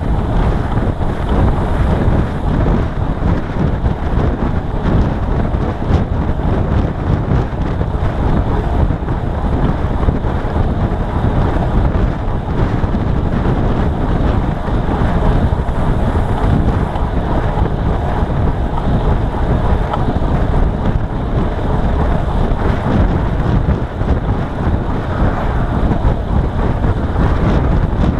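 Steady, loud wind noise buffeting the camera's microphone as a road bike is ridden at speed.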